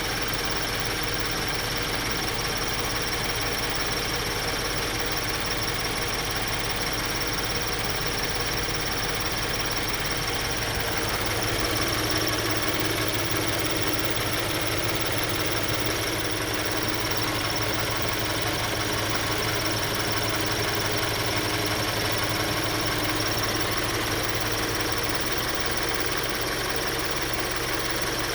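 2013 Scion FR-S's 2.0-litre flat-four boxer engine idling hot, with a chirping that shows up only after a drive, never on a cold start. It grows a little louder about twelve seconds in. The owner is unsure whether the chirping is a precursor to rod knock.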